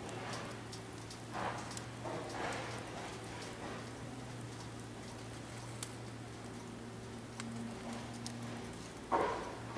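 Firewood burning in a secondary-combustion fire pit, crackling with scattered sharp pops, with a louder noisy flare-up about nine seconds in.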